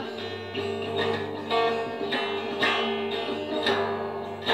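Steel-string acoustic guitar strummed in a steady rhythm, about two strokes a second, the chords ringing on between strokes.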